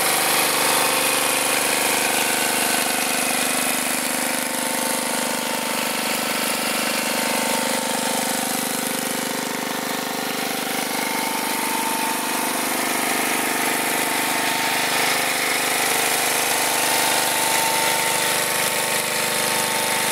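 Tecumseh small engine driving the hydraulic pump of a log splitter, running steadily at a constant speed.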